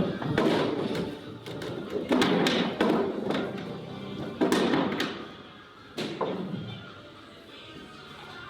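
Background music, over which billiard balls click sharply several times as they are struck with the cue and collide, the clacks bunched in the first half.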